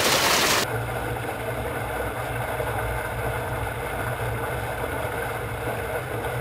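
Water rushing loudly over the mouth of a fibreglass water slide. Under a second in it cuts off sharply and gives way to a quieter, steady low hum with a thin hiss of water running down the slide's chute.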